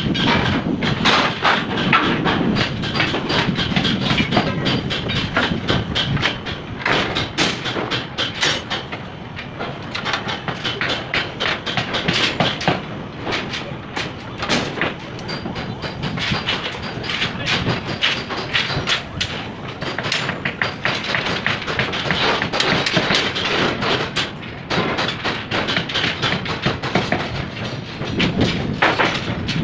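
Construction site work noise: a dense, irregular run of knocks and clatter with no steady rhythm.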